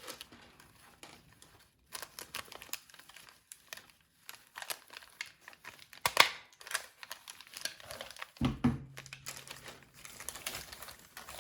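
Plastic fringe crinkling and rustling as it is handled and pressed against a shirt sleeve, with sharp stapler snaps about six and about eight seconds in.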